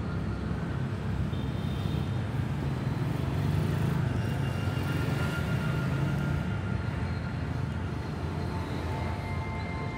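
Steady road-traffic noise: a low, even rumble of city vehicles.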